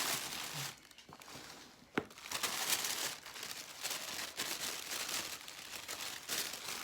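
Tissue paper rustling and crinkling in bursts as a wrapped item is unwrapped, with a single sharp click about two seconds in.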